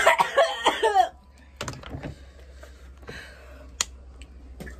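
A person coughing harshly for about a second, from the burn of an extremely hot chili chip, then a quieter stretch with a couple of small sharp knocks.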